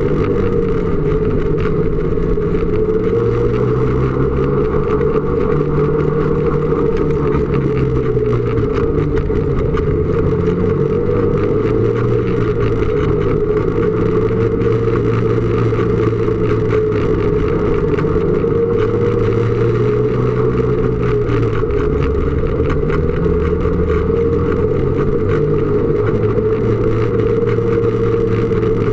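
Snowmobile engine running steadily while riding, its pitch slowly rising and falling several times.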